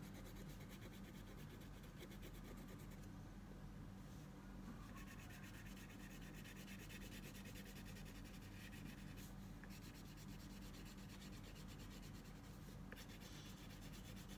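Red crayon rubbed on paper in quick, short back-and-forth strokes, a faint steady scratching as an area is coloured in, over a low steady hum.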